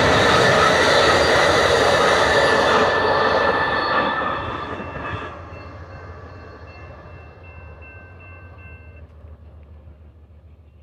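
Amtrak Southwest Chief passenger train's bi-level cars rushing past at speed on the rails, loud for about four seconds, then fading fast as the train pulls away. A faint steady high whine lingers for a few seconds as it dies away.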